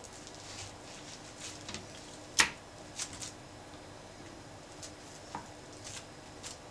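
Bamboo sushi-rolling mat rustling and clicking softly as hands press it around a sushi roll and unroll it, with one sharp knock about two and a half seconds in and a few small clicks just after.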